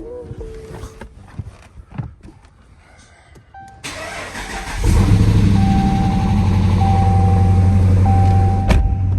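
A car engine is cranked about four seconds in, catches and settles into a steady idle. An electronic warning chime sounds on and off over it.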